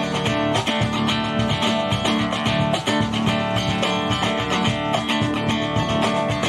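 A band playing an instrumental passage led by strummed guitars.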